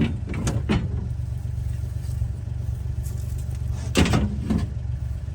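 A vehicle engine running steadily with a low rumble, and a few short knocks or clatters near the start and at about four seconds.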